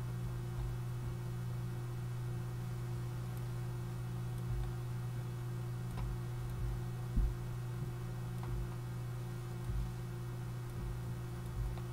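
Steady low electrical hum from the recording setup, with a few soft computer-mouse clicks and low knocks scattered through it as pen-tool anchor points are placed.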